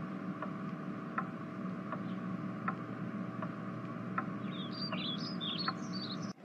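Faint background ambience: a steady low hum with a soft tick about every three-quarters of a second, and a quick run of high bird chirps coming in about four seconds in.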